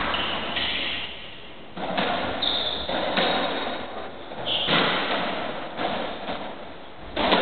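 Racketball rally: the ball struck by rackets and smacking off the court walls about every second, each hit echoing round the court, with two short squeaks of shoes on the wooden floor in between.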